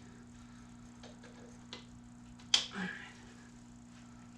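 Light clicks and knocks of hand work fitting a serpentine belt around engine pulleys, with one sharp clack about two and a half seconds in, over a steady low hum.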